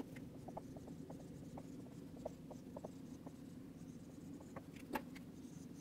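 Dry-erase marker writing on a whiteboard: faint, short squeaks and taps as the letters are written, with a sharper tap about five seconds in.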